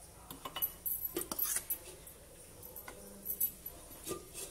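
A metal fork beating thick besan batter in a ceramic plate, with irregular light clinks and scrapes of the tines against the plate, clustered about a second in and again near the end.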